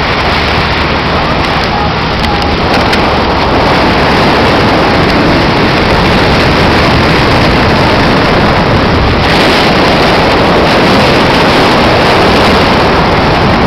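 Loud, steady rush of wind buffeting the microphone, mixed with the engine and water noise of a motorboat running at speed. It grows a little louder a few seconds in.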